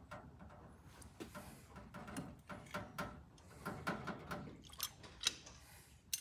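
Light, scattered clicks and knocks of small metal carburetor parts being handled and set down, with a sharper click about five seconds in.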